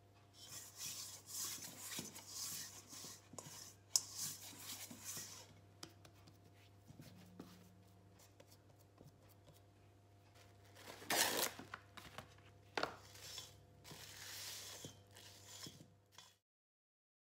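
A kitchen towel rubbing oil around the inside of a stainless steel mixing bowl, a dry scrubbing swish over the first few seconds, then soft handling of bread dough. Later plastic cling film crackles as it is pulled off the roll, torn and stretched over the bowl, with a sharp click in the middle; the sound cuts off abruptly near the end.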